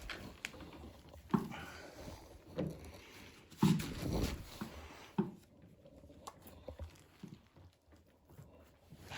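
Footsteps: about five low thuds roughly a second apart, then fading out for the rest.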